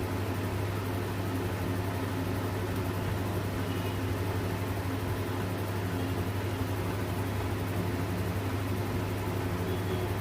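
Steady low machine hum, unchanging in pitch and level, with a faint noisy haze over it.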